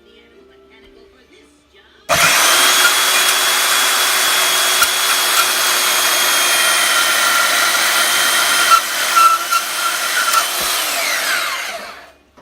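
Harbor Freight chop saw switched on about two seconds in and cutting through a metal bracket, a loud steady whine with a grinding rasp. Near the end it is switched off and spins down with a falling whine.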